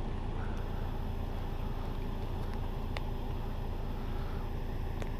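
A pickup truck's engine idling steadily, a low even hum, with a faint click about three seconds in.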